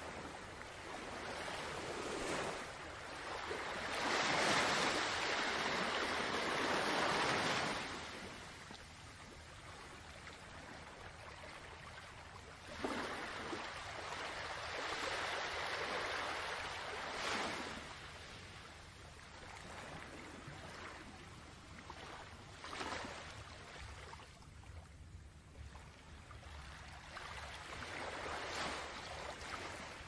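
Ocean waves washing in and out in slow, hissing swells, the largest about four seconds in and another about thirteen seconds in, with smaller washes between.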